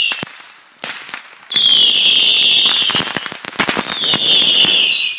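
Whistling fireworks going off one after another, each whistle high and falling in pitch — a long one about a second and a half in and another near the end — among sharp pops and cracks.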